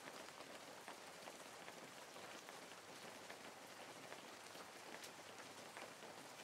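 Faint, steady patter of falling water, many small drops striking water without a break.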